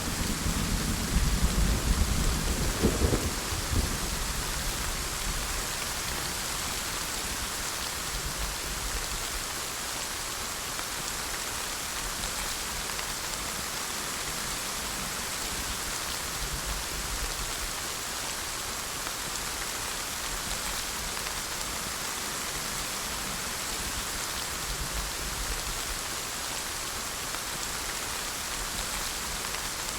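Steady rain falling, an even hiss throughout. Over the first few seconds a low rumble of thunder dies away, leaving only the rain.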